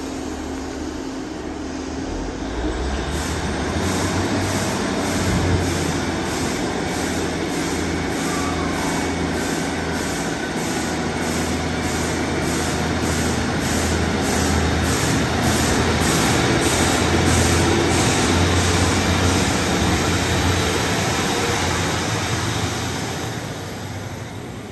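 Northern Class 150 diesel multiple unit 150269 pulling away: its diesel engines open up about two seconds in and the sound grows as the train passes, then fades near the end. A regular ticking, about twice a second, runs through the middle of the pass.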